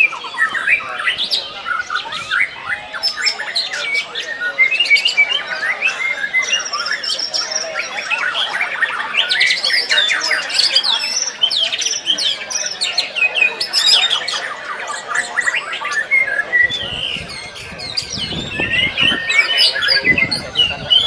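White-rumped shamas (murai batu) singing loudly in competition, with dense, overlapping streams of rapid varied whistles, trills and chattering phrases that never pause.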